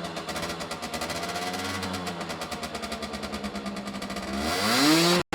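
Aprilia RS50's single-cylinder two-stroke engine, fitted with a 50cc racing big-bore kit and stock exhaust, idling steadily, then revved once near the end, its pitch climbing sharply as it gets loud.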